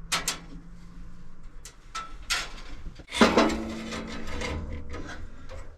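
Knocks and rattles of hands working on a Delta 14-inch bandsaw while its new blade is being installed. The loudest, a sharp knock about three seconds in, rings on with a steady tone for a couple of seconds.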